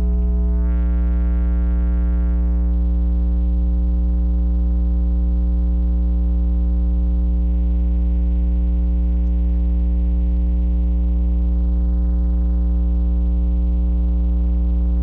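A huge carnival sound-system rig playing a loud, steady, deep bass test tone with a stack of higher overtones during a sound check, holding unchanged throughout.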